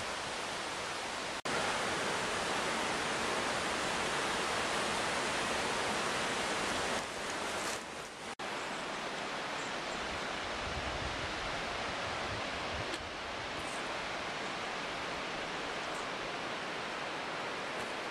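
Steady rushing of a mountain stream, broken by two sharp, momentary dropouts about a second and a half in and just after eight seconds.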